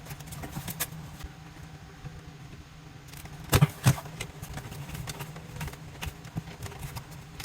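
Scattered clicks and knocks of hands working with wire and tools during an electrical hookup, with two louder knocks close together about three and a half seconds in, over a steady low hum.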